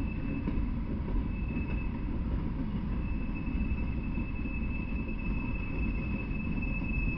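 Freight train of Norfolk Southern open-top coal cars rolling past at steady speed: a continuous rumble and clatter of steel wheels on the rails. A thin, steady high whine sits over it.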